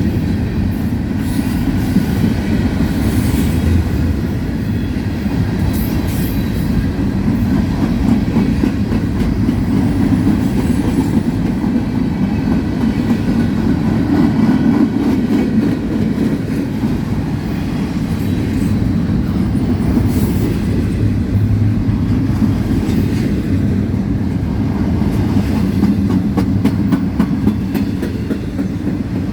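Union Pacific freight train rolling past: a steady, loud rumble of steel wheels on rail, with the clickety-clack of wheels crossing rail joints, more of it near the end.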